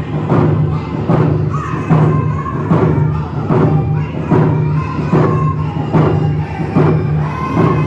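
Round dance song: hand drums struck together in a steady beat, about one beat a second, under group singing.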